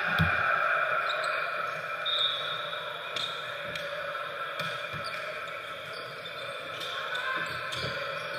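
Volleyball being hit during a rally in a large gym: one heavy hit a moment in, then about half a dozen sharper hits and bounces spread through the rest.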